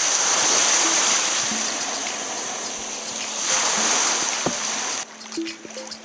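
Surf breaking and foaming around the bow of a sea kayak heading out through the waves: a loud rushing wash that surges again about three and a half seconds in. About five seconds in it cuts off abruptly to much quieter water under music.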